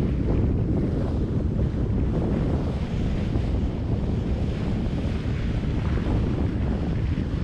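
Steady wind rumbling on the microphone over the rush of sea water along the bow of a boat under way.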